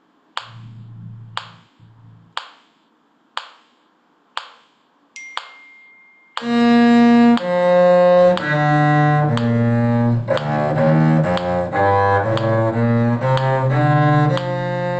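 Metronome clicking about once a second, then a bowed cello comes in loudly about six seconds in, playing a tune of held notes over the continuing clicks.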